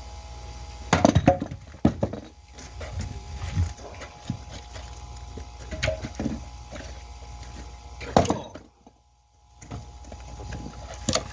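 Axe blows splitting firewood: sharp cracks of wood, the loudest about a second in, past eight seconds and just before the end, with smaller knocks between.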